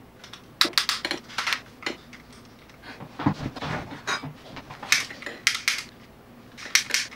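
Sharp clicks of a long-neck utility lighter's trigger pulled again and again without lighting: the lighter doesn't work. A few duller knocks come around the middle.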